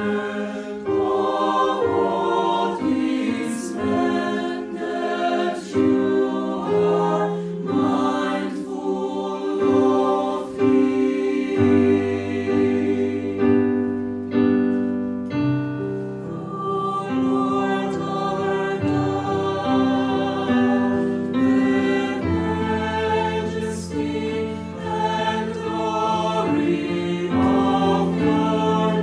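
Mixed choir of women's and men's voices singing a Christmas carol in parts, holding long chords that change every second or two.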